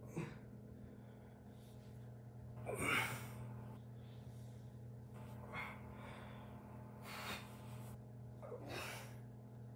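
A man breathing hard and gasping with the effort of doing sit-ups: about five loud breaths a second or two apart, the loudest about three seconds in, over a steady low hum.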